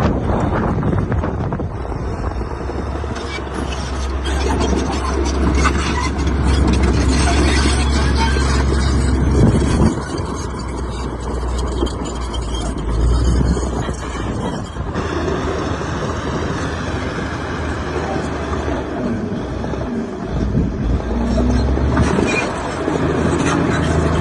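Heavy diesel engine of earthmoving machinery running, its low drone swelling and easing with the load.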